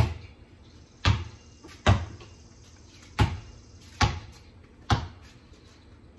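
A basketball being dribbled on concrete: six sharp bounces, roughly a second apart, each a hard thump with a short ring.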